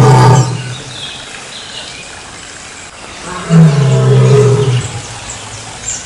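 Lion roaring: one loud, low call ends just after the start, and a second, about a second and a half long, comes about three and a half seconds in. Faint bird chirps sound between the roars.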